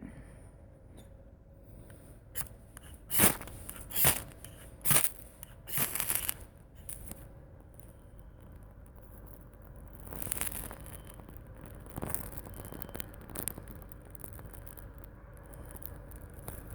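Ferro rod struck four times in quick succession, each a short bright scrape about a second apart, with the last one longer. Softer scraping and small clicks follow.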